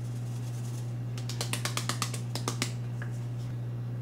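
Parsley spice shaker being shaken over a baking dish: a quick run of light rattling ticks starting about a second in and lasting about a second and a half. A steady low hum runs underneath.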